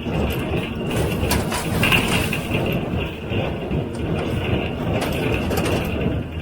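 John Deere 348 square baler with a #42 pan kicker ejector running while baling hay: a steady mechanical clatter with repeated knocks over the tractor's engine.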